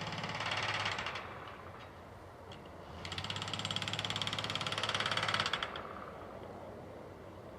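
A powered hammering tool rattling fast and evenly in two bursts: one ends about a second in, and the second runs from about three seconds to nearly six seconds in.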